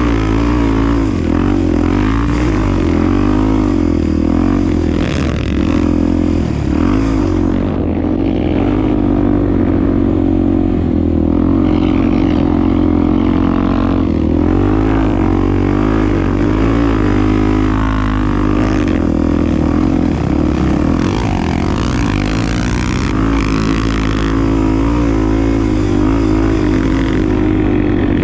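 Honda Tornado 250's single-cylinder four-stroke engine running while being ridden, its pitch rising and falling continuously as the throttle is opened and closed.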